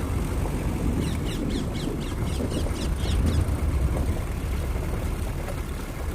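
A bird gives a rapid series of high, sweeping calls, about four or five a second, from about one second in for two and a half seconds. Under it a safari vehicle's engine keeps up a steady low running.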